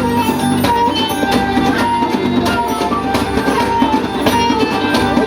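Live band playing an instrumental passage between sung lines, with plucked strings and a steady drum beat.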